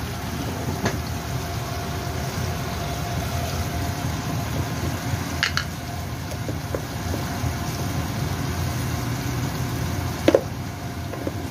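Tofu, mushrooms and tomato simmering in their broth in a wok over a gas burner turned to high flame: steady bubbling over a low rush, with a few short clicks, the loudest about ten seconds in.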